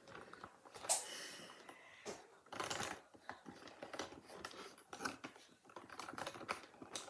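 Faint, scattered clicks and rattles of felt-tip markers knocking against each other and a clear plastic box as a hand rummages through them.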